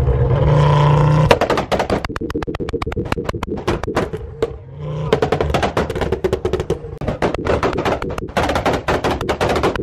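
Tuned Ford hatchback's engine revved hard, breaking about a second in into a rapid, irregular string of exhaust pops and bangs like machine-gun fire, with a short return to the plain engine note near the middle before the crackling resumes.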